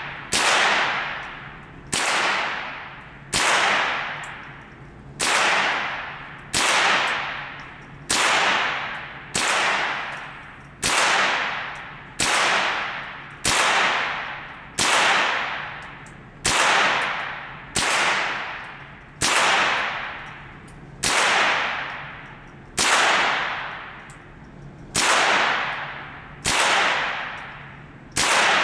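Smith & Wesson M&P 15-22 semi-automatic .22 LR rifle firing slow, steady single shots, about one every second and a half, around twenty in all. Each crack rings on in the indoor range's echo, over a faint steady hum of ventilation.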